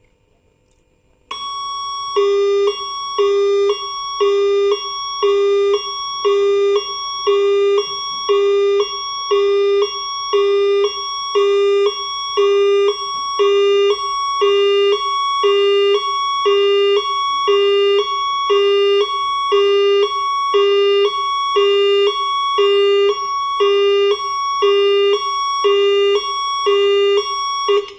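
Emergency alarm signal over a plant's public address and general alarm (PAGA) system, sounded as a test. It is a two-tone signal: a low tone and a high tone alternate in a steady cycle about once a second, starting about a second in and stopping near the end.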